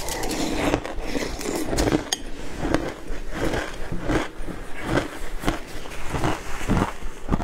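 Crushed matcha ice crunched and chewed in the mouth, close to the microphone: a steady run of crisp crunches, about two a second.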